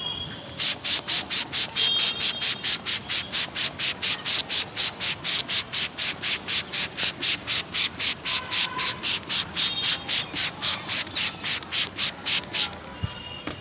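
Hands rubbing briskly back and forth over a person's hair and scalp in a head massage, about four quick strokes a second, starting about half a second in and stopping shortly before the end.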